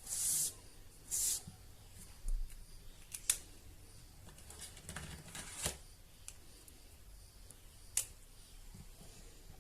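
Pen strokes scratching across paper: two short scratchy strokes at the start and about a second in, then a few sharp clicks and taps spread through the rest.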